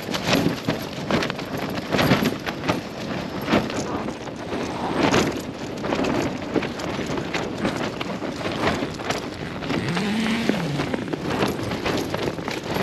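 Strong gusting wind battering a Hilleberg Jannu tent, heard from inside: the fabric flaps and snaps in quick, irregular cracks over a constant rush of wind.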